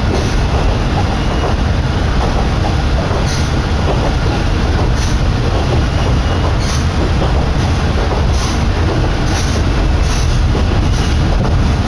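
Kominato Railway diesel railcar running at speed, heard from inside by an open window: a loud, steady rumble of wheels on rail with wind buffeting, and sharp clicks every second or two as the wheels cross rail joints.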